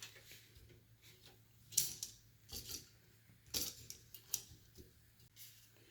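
A few light clicks and rustles of PC power cables and plastic connectors being handled and worked into a cramped computer case, over a faint steady low hum.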